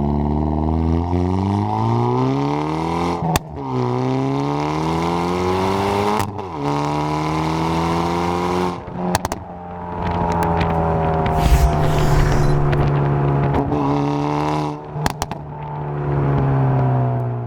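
Hyundai Veloster N's turbocharged four-cylinder, fitted with a catless downpipe, accelerating hard. It climbs in pitch through about three gears, dropping sharply at each upshift, then eases off with a gently falling note, with sharp pops around the shifts and again near the end.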